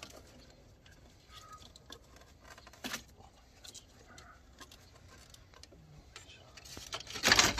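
Faint, scattered clicks and taps of hands handling wiring and plastic parts in a car's engine bay, with one sharper click about three seconds in. Near the end comes a louder rustling scrape lasting about half a second.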